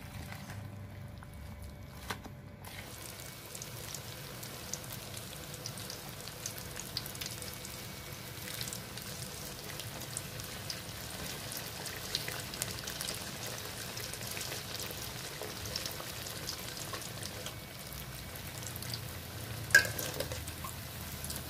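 Bakwan vegetable-fritter batter deep-frying in hot oil in an aluminium wok: steady sizzling with many small scattered pops. A couple of seconds of a spoon stirring batter in a bowl come before it, and near the end a metal spatula or fork gives one sharp clink against the wok.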